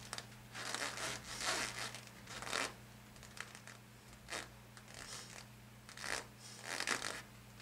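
Soft rustling swishes of body movement as a leg swings forward and back, about seven at uneven intervals, over a faint steady electrical hum.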